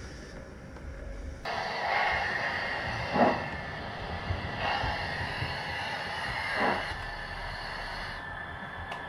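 Steam locomotive sound of a train pulling away: a steady hiss with a few slow, heavy chuffs spaced a second or more apart. It comes in sharply about a second and a half in, over a low rumble.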